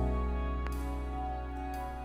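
Music played back from a vinyl record on a turntable: a held chord over a deep bass note, slowly fading.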